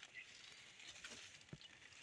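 Near silence, with a few faint clicks.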